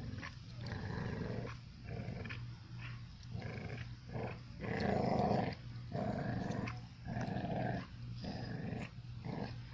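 Puppies and a larger dog growling in rough play: a run of rough growls about a second apart, the loudest about five seconds in.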